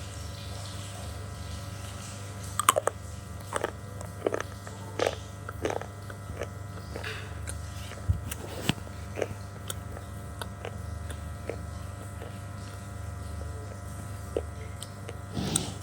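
Someone biting and chewing hard, crunchy earthy material: a run of crisp crunches in the first few seconds, then scattered single crunches, over a steady low hum.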